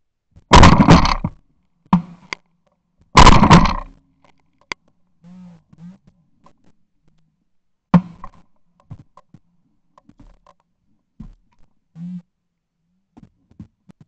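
Two shotgun shots, about two and a half seconds apart, fired from the gun carrying the camera at flying clay targets. A sharper, shorter bang follows about eight seconds in.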